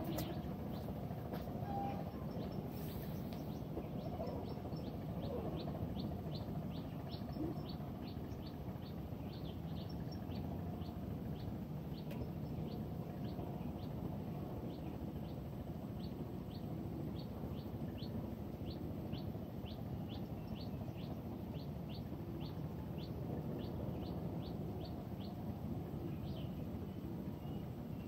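A small bird repeating a short, high chirp over and over, about two or three a second, over a steady low outdoor background.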